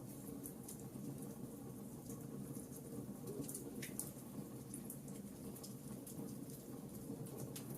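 Wood fire crackling: scattered small pops and snaps over a low steady rumble, with one sharper pop about four seconds in.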